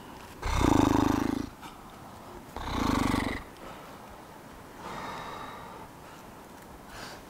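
A climber grunting and exhaling hard with effort on difficult moves: two loud, rasping grunts in the first few seconds, then a softer breath about five seconds in.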